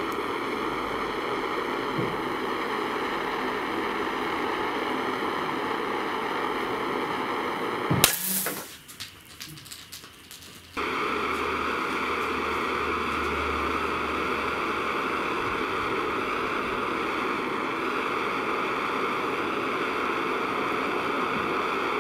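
Gas torch flame hissing steadily against an AA alkaline battery. About eight seconds in comes one sharp pop, the loudest sound. The hiss then drops away for a couple of seconds and cuts back in abruptly.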